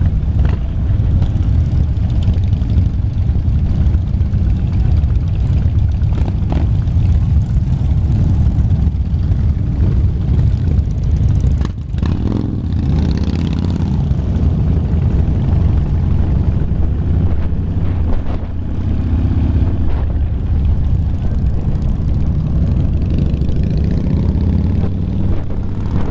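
Cruiser motorcycle engine running steadily at low parade speed, heard from the rider's seat, with other motorcycles riding close around it.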